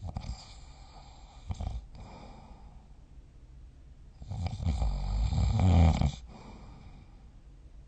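A sleeping person snoring: two short, quieter breath sounds near the start, then one long snore about four seconds in that lasts about two seconds and grows louder to a peak just before it stops.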